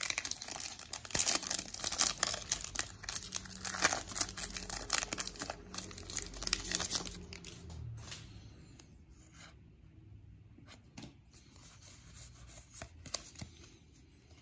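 Foil Pokémon booster-pack wrapper being torn open and crinkled for about the first eight seconds, then fainter rustling and a few light clicks as the cards are handled.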